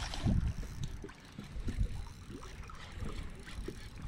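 Wind buffeting the microphone in uneven low gusts, with small waves lapping against the boat's hull.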